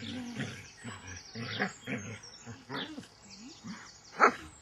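A dog vocalising in short, rising-and-falling grumbling whines, with one loud bark about four seconds in.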